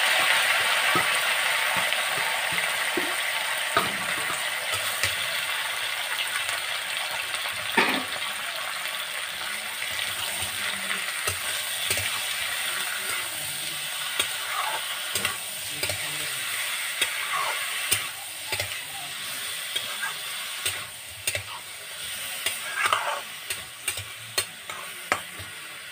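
Marinated chicken, onion, tomato and potato sizzling in hot oil in a metal karahi, stirred with a metal spatula that scrapes and clicks against the pan. The sizzle starts loud and slowly dies down as the pan cools under the added food.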